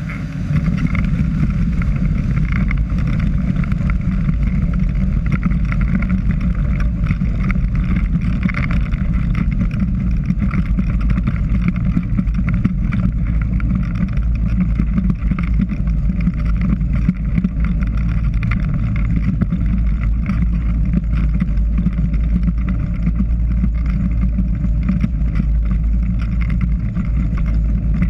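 Ultralight trike's engine and pusher propeller running steadily at taxiing power while it rolls over a grass strip, stepping up in level about half a second in, with many small knocks from the rough ground.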